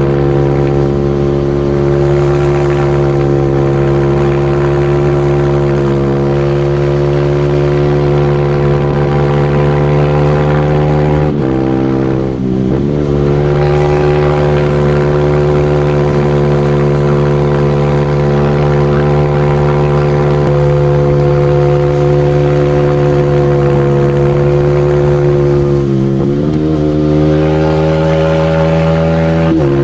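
Single-cylinder supermoto motorcycle engine held at high, steady revs. Its pitch dips briefly and climbs back twice, about twelve seconds in and again near the end.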